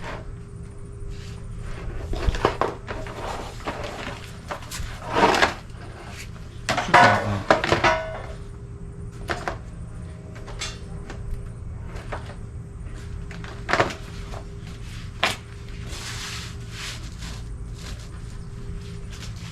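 Hard plastic parts being handled and fitted together: irregular knocks, thunks and clicks, with a louder scraping rattle around 7 seconds in. A steady low hum runs underneath.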